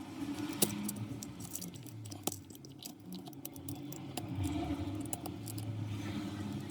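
Scattered light clicks and scrapes of a metal blade against an iPhone's broken back glass as the shards and glue are worked off, over a low steady hum.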